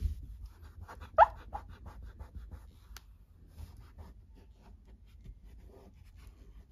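A wet wipe rubbing over the varnished carved wood of a chest in quick scratchy strokes, with one short, loud squeak of the wipe about a second in and a click a little later.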